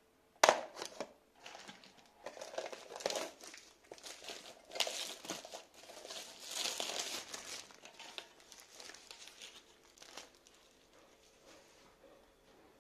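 Clear plastic wrapping crinkling and tearing as it is cut with scissors and pulled off a small nonstick saucepan, in irregular handfuls that die away near the end. There is a sharp click about half a second in.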